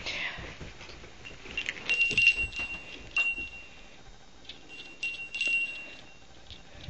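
A small bell ringing in two short bouts, each a clear high ringing tone mixed with clattering knocks as the bell is moved about.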